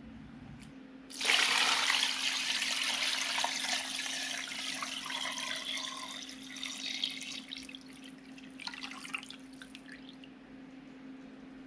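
Brine poured from a stainless steel pot into a bowl of raw chicken legs, splashing as the bowl fills. The pour starts about a second in, then grows quieter and thins to a trickle and a few drips before stopping near the end.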